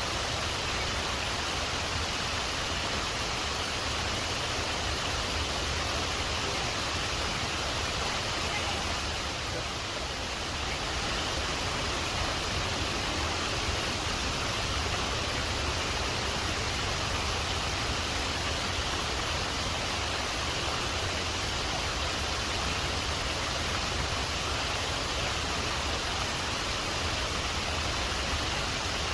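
Waterfall running steadily: a continuous, even rush of falling water.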